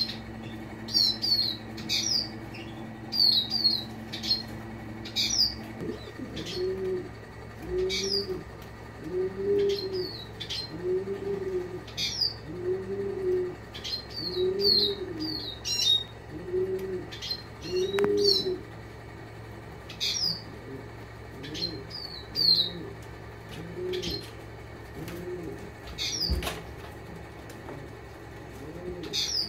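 European goldfinch hen giving short, high call notes in quick clusters, again and again. From about six seconds in, a dove coos more faintly in a steady repeating rhythm, each coo rising and falling in pitch.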